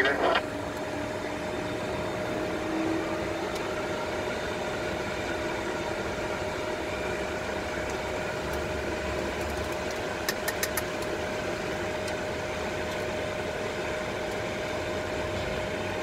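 Steady flight-deck noise in a Boeing 747 cockpit while taxiing: the hum of the engines at idle thrust and the air conditioning, with a steady whine over it. A short run of quick clicks comes about ten seconds in.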